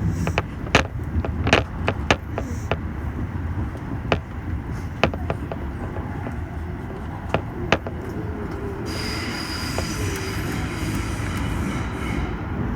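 Toei Shinjuku Line subway train running, heard from inside the car: a low rumble with a series of sharp wheel clicks over the rail joints. About nine seconds in, a high hiss with a squealing tone sets in.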